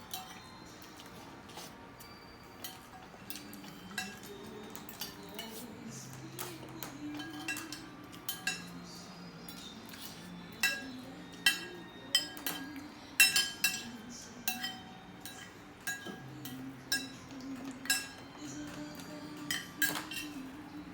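Cutlery clinking against a plate while eating, in scattered sharp clinks that come faster and louder about halfway through, over soft background music.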